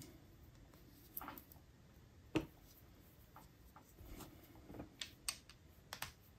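Faint, scattered clicks and taps of small plastic parts as the gear housing of an HO-scale Bachmann F7 locomotive's pancake motor is worked apart by hand. One sharper click comes about two and a half seconds in, and a run of light clicks near the end.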